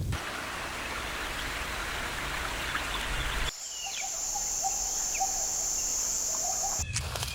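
Nature ambience: a steady hiss like running water. About halfway through it cuts suddenly to a steady high-pitched buzz with short chirps over it, like insects and birds.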